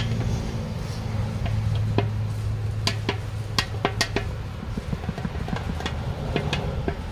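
Scattered sharp taps and clicks of hand work inside a car tyre during a cut repair, over a steady low hum.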